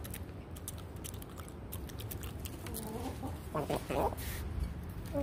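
Hens clucking, a few short, bending clucks coming about three seconds in, over light rustling.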